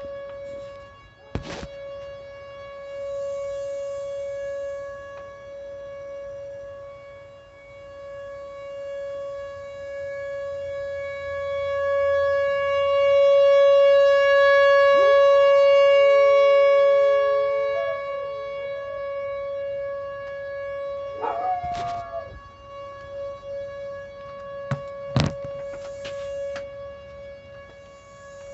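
Tornado siren sounding one steady, unchanging tone that swells and fades in loudness, loudest in the middle. About halfway through, a dog howls along for a few seconds, its voice sliding up and then wavering. A few sharp knocks are heard.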